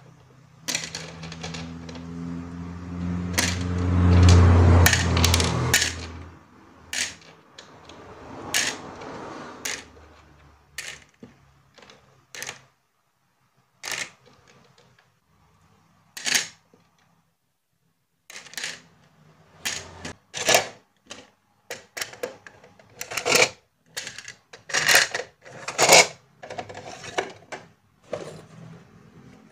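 Small plastic charms being picked up and dropped into clear plastic storage drawers: scattered clicks and taps of plastic on plastic, thickest in the last third. A low hum swells over the first few seconds, becomes the loudest sound about four seconds in, and fades out by about six seconds.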